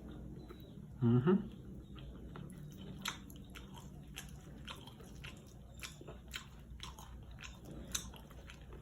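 Close-up mouth sounds of someone chewing and biting soft, saucy adobo: many small wet smacks and sharp clicks, with a short loud voiced sound about a second in.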